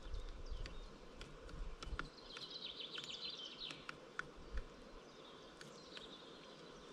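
Great spotted woodpecker pecking at a dead tree trunk: faint, sharp, irregular taps, with other birds singing in the background. A low wind rumble on the microphone in the first two seconds.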